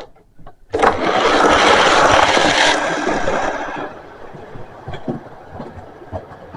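Hornby OO gauge Class 43 HST model train running on the layout track: a loud, even rushing noise cuts in just under a second in and falls away near four seconds in, leaving a quieter run with faint clicks.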